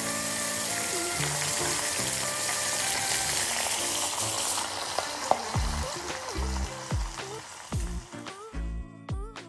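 Hot peanut oil sizzling and bubbling over chili flakes, garlic and whole spices as the chili oil infuses. The sizzle dies away over the second half, leaving background music with a bass line.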